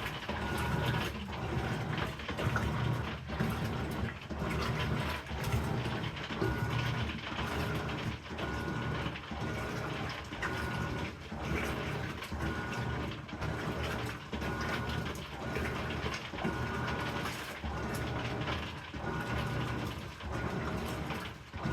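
Amana NTW4519JW3 top-load washing machine agitating, the agitator swishing the load back and forth in a steady rhythm of strokes a little under a second apart, with a crackling noise during agitation whose cause is not known.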